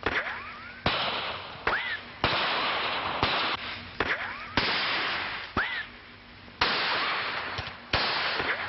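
A gun battle: about ten sharp shots in under nine seconds, each with a long echoing tail, and several followed by a short rising ricochet whine.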